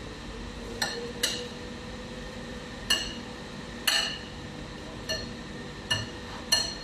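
A metal spatula and spoon clinking against a glass bowl of cooked egg: about seven sharp, ringing clinks at uneven intervals.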